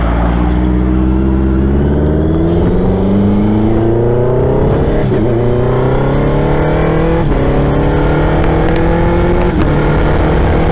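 Honda CBR650F's inline-four engine pulling under acceleration, its pitch climbing steadily and dipping briefly at each upshift, several gear changes in a row.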